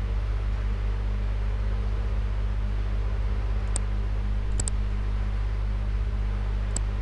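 Steady low electrical hum with an even hiss, with a few faint clicks about halfway through and near the end.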